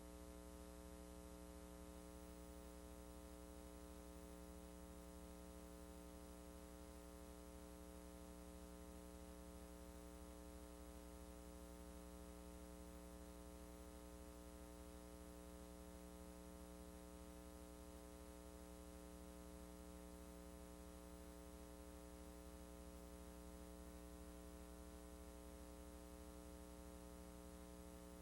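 Near silence: a steady, faint electrical mains hum with light hiss, the empty audio track of a VHS transfer that carried no sound.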